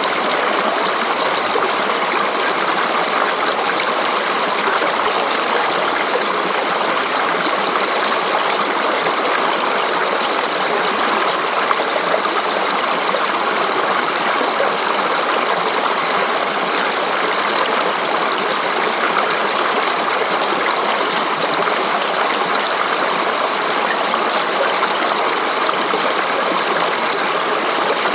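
A fast, shallow mountain stream rushing and splashing over rocks and boulders: a steady, even rush of water.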